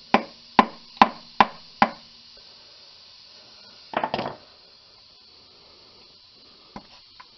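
A tool tapping on the metal sleeve of the old transmission filter seal in the aluminum case, denting it inward to shrink it so the seal can be removed. Five quick, sharp taps, about two and a half a second, then a short burst of knocking about four seconds in and two light clicks near the end.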